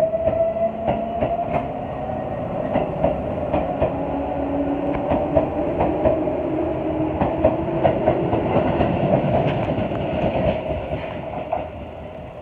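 A Tobu 8000 series electric commuter train pulling out of a station. A whine rises in pitch as it gathers speed, with the wheels clacking over rail joints, and the sound fades near the end as the train moves away.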